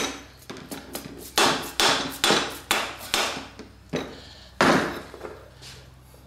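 About ten uneven mallet blows on an induction motor's end shield, with a gap in the middle. They are driving the bearing housing off the rotor and its bearing, and each blow rings briefly.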